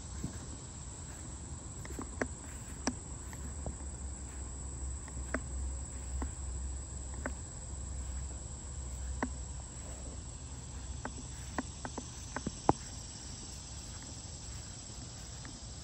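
Steady high-pitched insect chorus, with scattered sharp clicks over it, the loudest one near the end.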